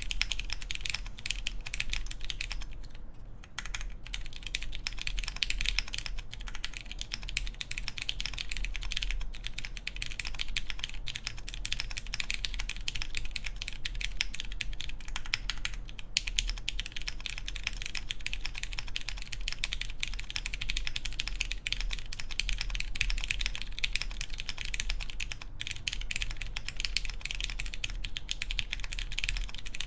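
Fast, continuous typing on a Wind Studio Hola Mini mechanical keyboard with lubed Cherry MX Clear tactile switches, a polycarbonate plate and GMK keycaps, a dense run of key clacks. There is a brief pause about three seconds in.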